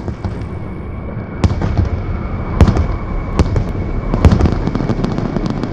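A string of sharp bangs and crackles over a dense low rumble, the loudest cracks about a second apart, with a faint steady high tone behind.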